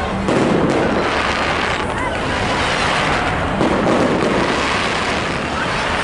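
Aerial fireworks bursting and crackling overhead, with a louder burst shortly after the start and another at about the middle, over the chatter of a crowd.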